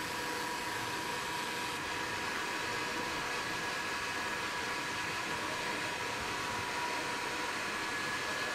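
CPU cooler fan running steadily in a desktop PC: an even whoosh of air with a thin high whine on top.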